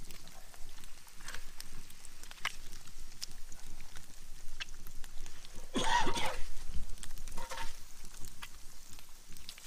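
Eggs sizzling in grease in a cast iron skillet, a steady fine crackle, with a spatula working in the pan. A brief louder noise stands out about six seconds in.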